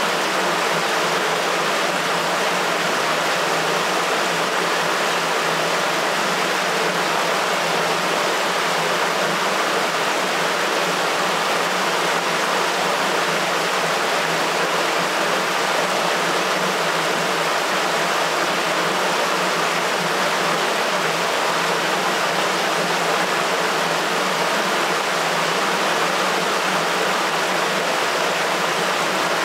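Water rushing steadily through a sewer, an even, unbroken rushing noise with no change in level.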